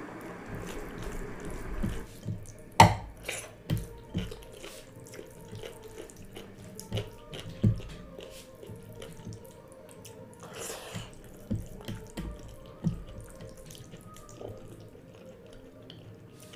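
A hand squishing and mixing wet rice soaked in water (pakhala bhaat) in a glass bowl, making watery squelches, drips and small clicks. The loudest is a sharp click about three seconds in.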